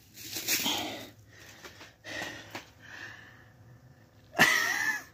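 Sniffing and breathing close to a phone microphone, with the phone rubbing against a flannel shirt; a short, louder breath or burst comes near the end.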